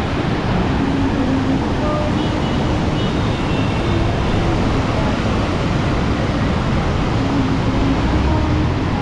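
Floodwater rushing through a sluice gate and over its spillway: a loud, steady, unbroken rush of churning water.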